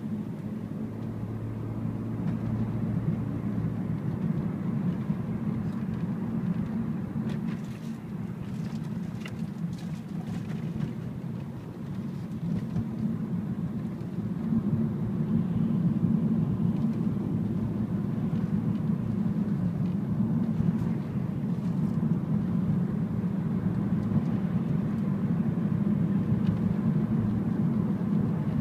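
Steady engine and tyre noise inside a moving car's cabin, a low even hum that grows a little louder about halfway through.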